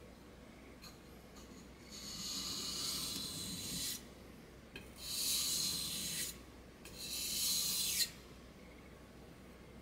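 Japanese kitchen knife blade scraped along a wet whetstone in three strokes, each a gritty rub lasting one to two seconds: the last passes that remove the burr from the freshly sharpened edge.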